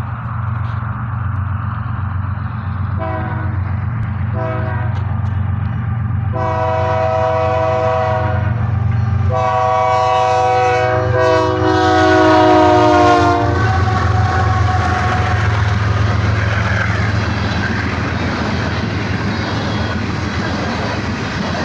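Air horn of a BNSF GE ES44AC diesel locomotive sounding two short blasts, then two long blasts, the second falling in pitch as the locomotive passes, over the steady drone of the V12 diesel engines. After the horn stops, the empty coal cars rumble and clatter past.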